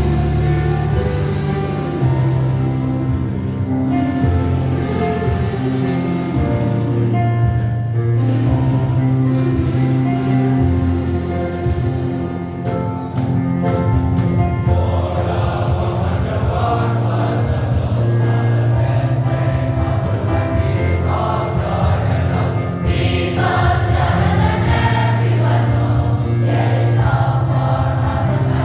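A school choir singing a song in parts, the higher voices coming in stronger about halfway through.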